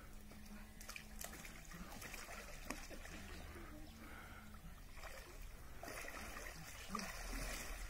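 Water in a shallow inflatable paddling pool sloshing and dribbling softly as a person steps in and sits down in it.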